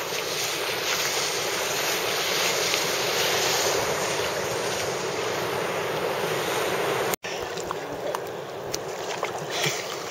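Ocean surf washing steadily, with wind noise on the microphone; the sound drops out for an instant about seven seconds in and is quieter after, with a few faint clicks.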